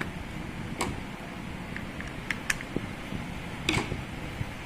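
A few light clicks and knocks of parts and tools being handled, scattered over a steady low background hum, with the loudest cluster of knocks near the end.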